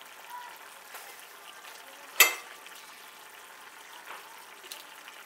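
Cauliflower and pea curry in coconut-milk gravy bubbling and sizzling in a frying pan, the gravy much reduced and thick, with small crackles throughout. A single sharp clink, the loudest sound, about two seconds in.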